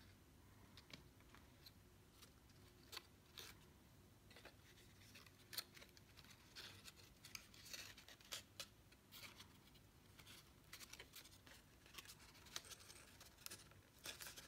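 Faint rustles and crisp clicks of cardstock being handled, folded and pressed together, with the sharpest tick about five and a half seconds in.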